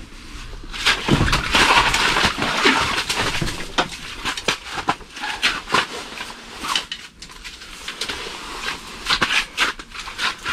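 Handling noise as a walleye is landed through a hole in the ice: irregular knocks, scrapes and crunching, with rustling clothing, busiest in the first few seconds.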